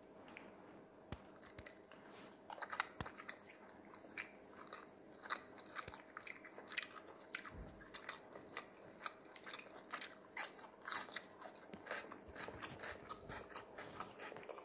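Rapid, irregular little clicks and scratchy crackles from a kitten playing right at the microphone, its claws and teeth working at fabric and objects, growing busier from about two seconds in.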